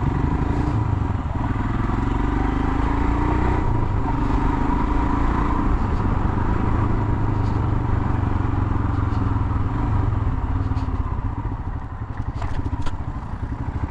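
Royal Enfield Himalayan's 411 cc single-cylinder engine running under way, its pitch rising and falling with the throttle, over road and wind noise on a helmet-mounted camera. The engine eases off and the bike slows near the end.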